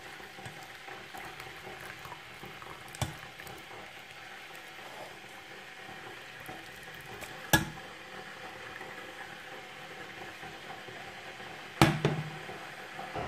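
Pot of herbal decoction bubbling steadily on the stove, a faint even hiss, with three sharp knocks: a light one about three seconds in, and louder ones about halfway and near the end.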